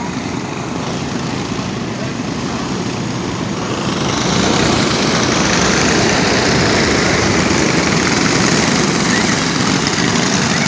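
Several dirt-track go-kart engines running together as a pack of karts passes, louder from about four seconds in as they go by close.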